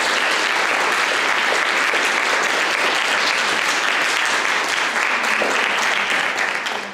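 Audience applauding, a dense, steady clapping that begins to die away near the end.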